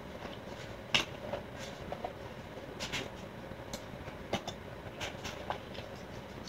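Scattered light clicks and rustles of handling, with one sharper click about a second in and a few more near the three- and four-and-a-half-second marks.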